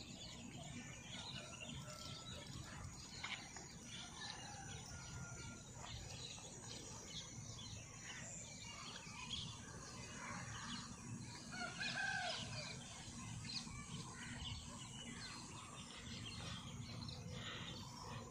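Faint outdoor bird chorus: many short chirps and calls scattered throughout, with one louder call about twelve seconds in.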